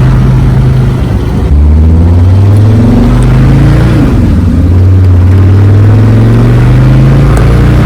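Mercedes OM617 five-cylinder diesel pulling hard while accelerating. The engine note drops at a gear change about a second in and again around four seconds in, climbing steadily after each. It is running strongly with a freshly rebuilt lift pump and a new primer pump.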